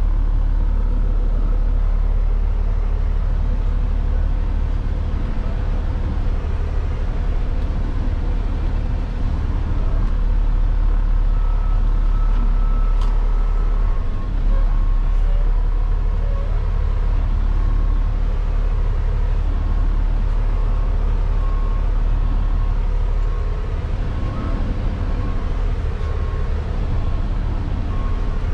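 Heavy truck's diesel engine running steadily, heard from inside the cab as the truck creeps around at low speed. A faint repeating beep sits over it in the second half.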